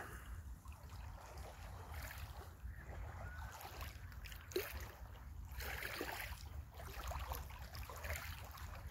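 Small lake waves lapping against the stones of the shore, faint, under a steady low wind rumble on the microphone, with a faint click about halfway through.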